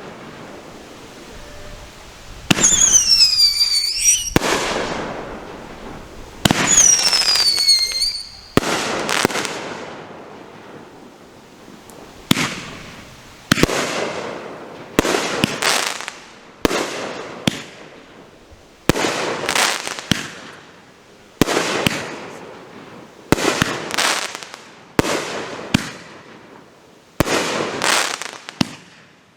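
Consumer firework cakes firing aerial shells: sharp bangs, each followed by a fading crackle. Early on, two shots carry high whistling tones that fall in pitch. From about nine seconds in, the shells break one after another, roughly one each second.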